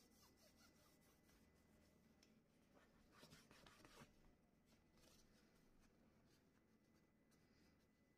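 Near silence with faint rubbing as a tissue is wiped along a laser printer's fuser heater element, loudest about three to four seconds in.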